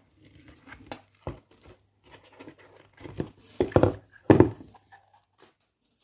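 Packaging being handled and torn open: irregular crinkling and rustling with small clicks, loudest in a few bursts just past the middle.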